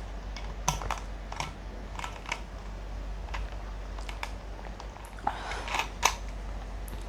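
A scattered series of short sharp clicks and light knocks, about a dozen, from objects being handled, with a brief scraping rustle just after five seconds.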